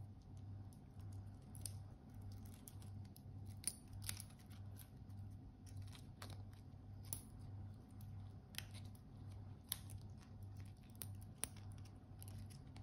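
Stainless steel watch bracelet and deployant clasp being handled and opened: a run of light, irregular clicks and small rattles from the links and clasp blades, a few sharper clicks among them.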